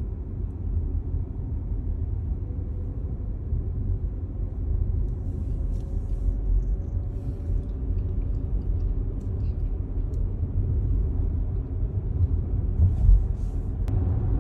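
Steady low rumble of a car heard from inside the cabin, with a few faint light clicks.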